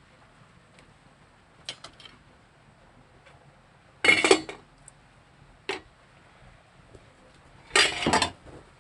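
Kitchen pot and utensils clinking and clattering while lagundi leaves are boiled for an herbal remedy: a few light knocks, and two louder rattling clanks about four and eight seconds in.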